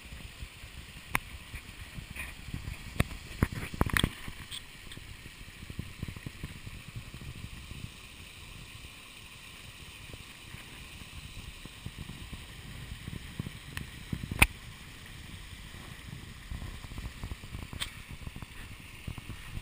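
Creek water splashing over sandstone from small waterfalls and cascades, a steady rush. Sharp knocks cut through it: a cluster about three to four seconds in and one loud knock about fourteen seconds in.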